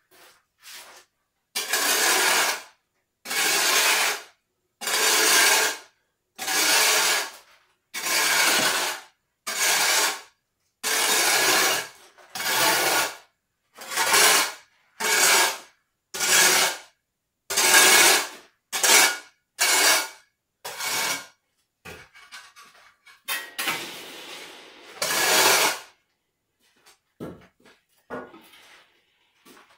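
Sand being sifted through a hanging round wire-mesh sieve: about fifteen rhythmic rasping strokes, each about a second long, as the sieve is swung back and forth. Near the end comes one longer rasp, then a few faint scrapes.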